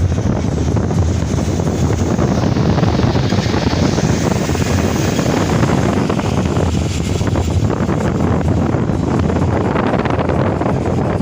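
Steady rushing noise of a moving car on the road, with wind buffeting the microphone.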